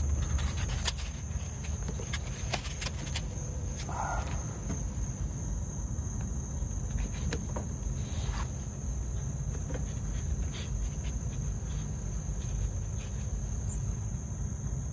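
Insects singing in a steady high, even tone, over a low rumble. A run of sharp clicks in the first three seconds and a few later as a small tubing cutter is fitted and turned on copper refrigerant line-set pipe.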